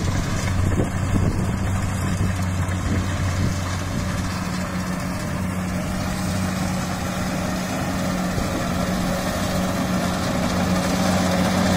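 Kubota DC70 rice combine harvester's diesel engine running at a steady low hum as the machine bogs down in soft, waterlogged paddy mud, its tracks barely able to move.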